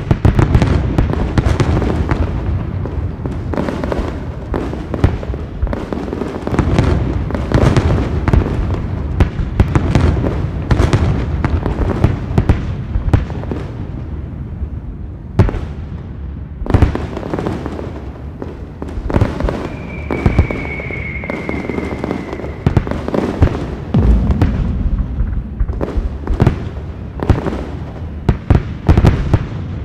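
Fireworks display: a rapid run of bangs and pops over a continuous deep rumble, with a few louder booms standing out. A high whistle slides slightly down in pitch for about three seconds around twenty seconds in.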